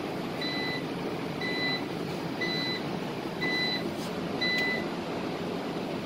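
Vertiv UPS giving five short electronic beeps about a second apart, its audible alarm, over a steady hum.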